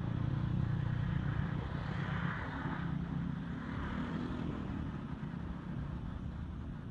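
A motor vehicle's engine running with a steady low hum that slowly fades over the last few seconds.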